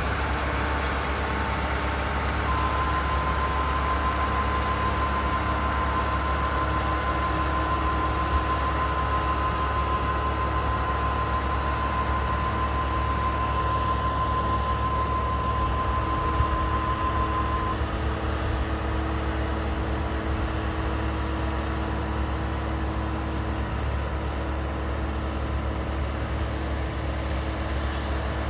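Steady mechanical drone of a Boeing 737-800 airliner and its pushback tug during pushback. A steady high whine joins about two seconds in and stops after about fifteen seconds.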